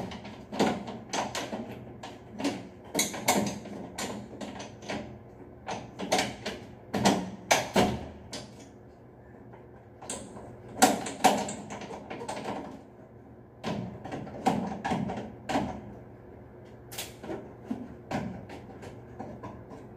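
A slatted sheet-metal ceiling reflector panel is being worked by hand into its frame. It gives a run of irregular sharp metallic clicks, knocks and rattles, broken by a few short pauses.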